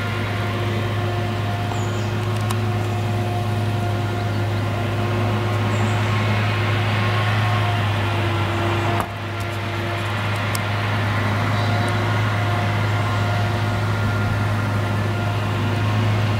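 Claas Jaguar 970 self-propelled forage harvester chopping a standing crop: a steady machine drone, a strong low hum with several steady higher tones above it. The level dips briefly about halfway through.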